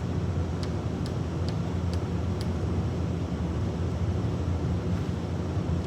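Steady low droning hum. Over it come five light clicks, about every half second, in the first couple of seconds, as a swaging tool is tightened down onto copper tubing.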